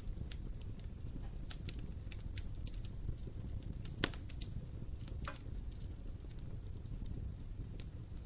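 Wood fire burning in a fireplace: a steady low rumble of flames with irregular sharp crackles and pops, the loudest about four seconds in and again a little after five seconds.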